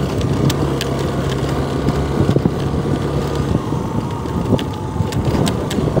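A vehicle's engine runs steadily with a low hum as it drives along a rough dirt track, with scattered sharp clicks and rattles over the road noise.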